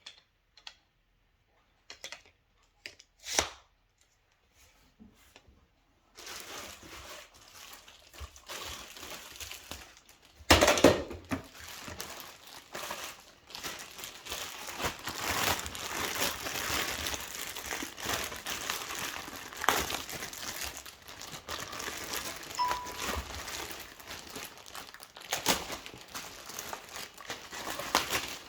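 Plastic packaging crinkling and tearing as vacuum cleaner parts are unwrapped by hand, starting with a few light clicks and becoming continuous crinkling about six seconds in. A sharp knock about ten seconds in is the loudest sound.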